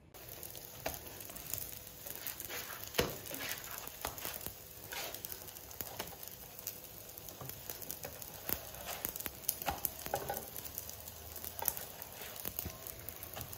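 Msemen flatbreads frying in oil on an electric griddle, sizzling steadily, with scattered sharp clicks and knocks of a spatula against the griddle plate as they are turned; the loudest knock comes about three seconds in.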